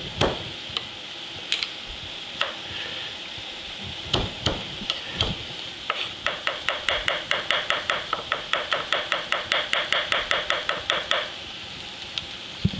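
Chef's knife chopping garlic on a wooden cutting board: a few single knocks, then from about six seconds in a fast, even run of about six taps a second that stops near the end. Chopped onion sizzles steadily in a skillet underneath.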